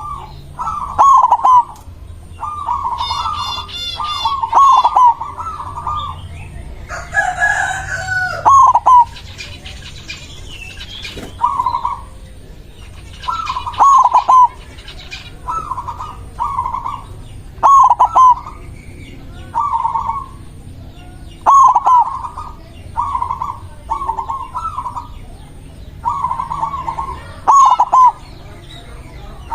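White zebra dove (perkutut) singing its song: short phrases of quick cooing notes repeated every two to four seconds. Another bird gives a longer, different call about seven seconds in, and small birds chirp faintly.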